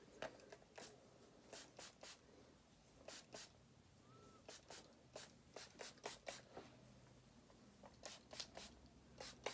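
Faint short spritzes of a pump-top spray bottle of heat-protectant spray misting onto hair, about twenty of them, several in quick runs of two or three.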